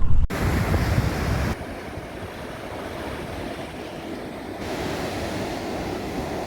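Ocean surf washing ashore in strong wind, with wind noise on the microphone. The sound shifts abruptly a few times.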